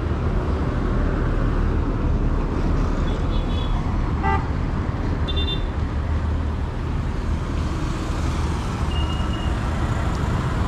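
Road traffic rumbling steadily close by, with a few short, high vehicle horn toots.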